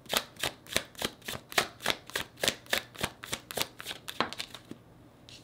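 Tarot deck being shuffled by hand, packets of cards passed from one hand to the other: a steady patter of soft card slaps, about four a second, that stops a little after four seconds in.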